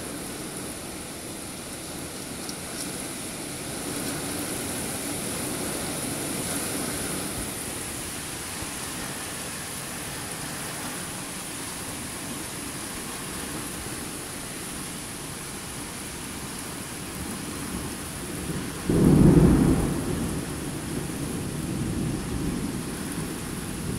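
Steady heavy rain of a thunderstorm cloudburst, with a sudden loud clap of thunder about three-quarters of the way through that rolls on as lower rumbling.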